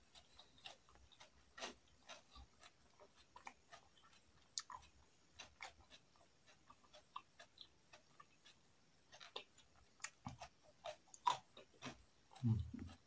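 A person chewing food with the mouth close to the microphone: quiet, irregular crunches and wet mouth clicks. A brief low voice sound comes near the end.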